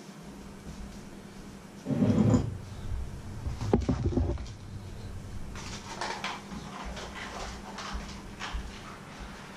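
Knocks, clicks and clatter of kitchen items being handled: a heavy low knock about two seconds in, a sharp click a little later, then several lighter clicks, over a steady low hum.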